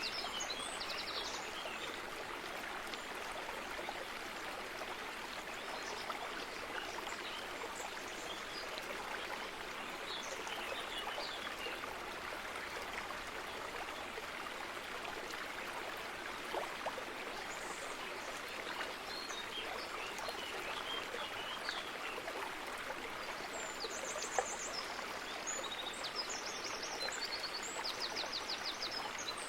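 Water running steadily, like a stream, with small birds chirping and trilling over it, mostly at the start and again in the last few seconds.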